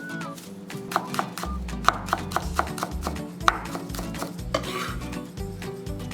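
Kitchen knife chopping shiso leaves on a cutting board, a run of sharp quick taps, over background music.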